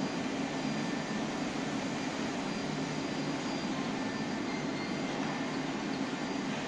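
Steady industrial drone of an induction melting furnace and its foundry plant running, with a faint high whine on top and no single event standing out.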